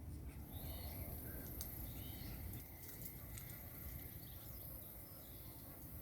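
Outdoor birdsong: short chirping bird calls several times, with a few sharp taps, over a steady high-pitched insect buzz that comes in about half a second in, and a low rumble underneath.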